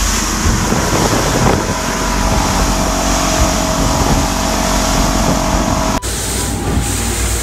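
Twin Mercury outboard motors running at speed as the boat planes over choppy water, with spray and wind buffeting the microphone in a loud, steady rush over a low rumble. The sound breaks off abruptly about six seconds in and resumes at once.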